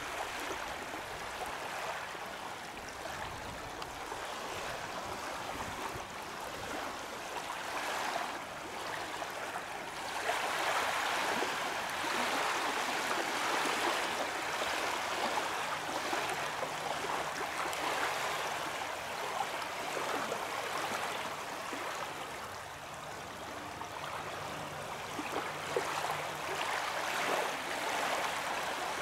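Steady rushing water, growing louder about ten seconds in and rising and falling in waves.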